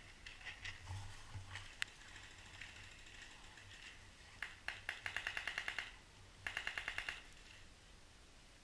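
Two quick, faint strings of paintball marker fire at about ten shots a second: the first about five seconds in lasting around a second, the second shorter just after. A few scattered clicks come before them.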